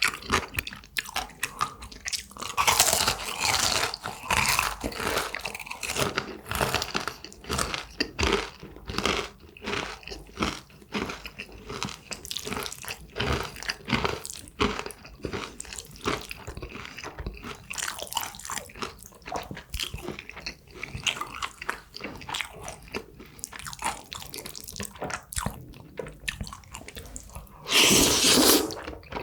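Close-miked eating of jjajangmyeon and crispy tangsuyuk: crunching, biting and chewing, with many small mouth clicks and a louder rush of noise about a second long near the end.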